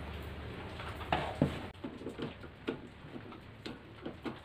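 Light, irregular plastic clicks and taps, a few a second, as the front grille and centre badge of a Maspion wall fan are handled and turned to straighten them.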